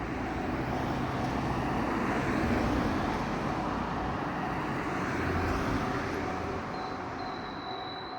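Train passing over a level crossing: the rumble of wheels and motors builds to a peak about two to three seconds in and then eases off, with a brief high squeal near the end. Under it the crossing's simple warning device keeps sounding its Tohoku-type alarm as a steady tone.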